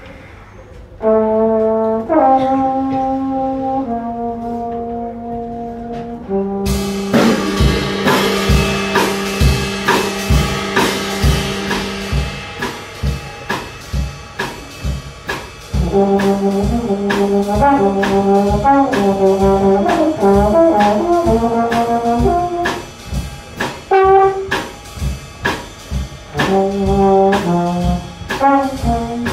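Student jazz big band playing a soundpainting improvisation: brass and saxophones hold chords that shift every couple of seconds, then about six seconds in the drum kit enters with cymbals and a steady beat while the horns play held notes and short repeated figures.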